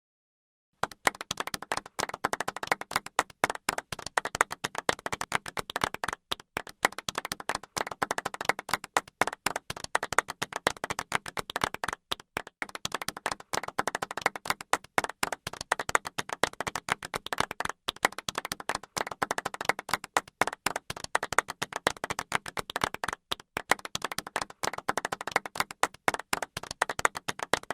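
Golf clap: a group of people clapping in a restrained, steady patter, beginning about a second in.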